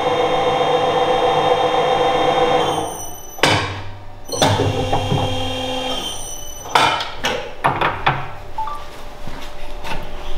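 Nargesa electric tube bender's drive running with a steady whine, then stopping about three seconds in. It is followed by several metal clunks and clanks as the bent steel tube is released from the die and handled.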